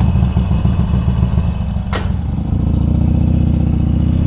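Harley-Davidson Sportster 1200 Seventy-Two's air-cooled V-twin running just after starting, with a loud pulsing low note and a single sharp clack about two seconds in. The engine's pitch then rises steadily over the last couple of seconds.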